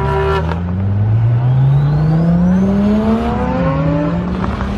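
Turbocharged car engine accelerating hard, its pitch climbing steadily, then dropping at a gear change about three seconds in and climbing again. A faint high rising whistle from the turbo spooling runs above the engine during the first pull.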